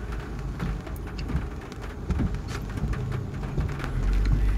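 Heavy rain pelting a car, heard from inside the cabin: a dense patter of many sharp drop hits over a steady hiss. A low rumble runs underneath and gets louder near the end.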